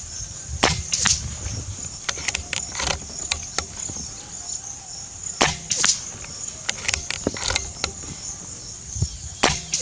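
Diana Stormrider Gen3 PCP air rifle fired three times, about a second in, just past halfway and near the end; the first two cracks are each followed by a second sharp knock about half a second later. Lighter clicks come between the shots as the rifle is reloaded, and crickets chirr steadily throughout.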